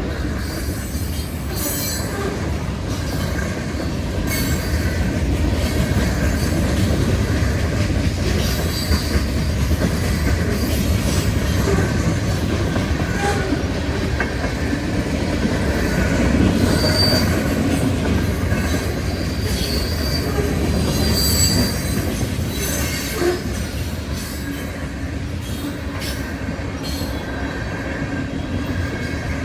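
CSX freight train cars rolling steadily past on the rails, with brief high-pitched wheel squeals a few times partway through.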